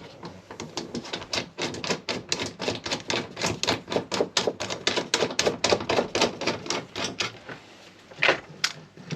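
Rapid ratcheting clicks from a hand tool, about six a second for some seven seconds, followed by two louder clacks near the end, most likely from working the threaded-rivet setting tool.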